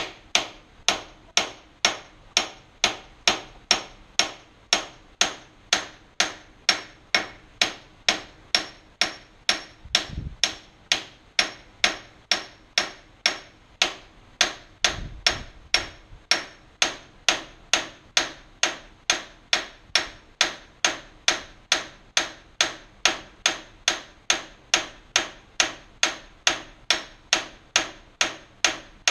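Hammer tapping a brass drift punch, metal striking metal in a steady run of sharp taps about twice a second, driving a half-removed part out of a Wilton band saw.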